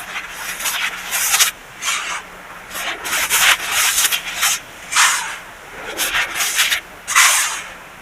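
Packed baking soda being crushed and rubbed: a run of irregular soft crunching, scraping strokes, each lasting a fraction of a second, with short pauses between.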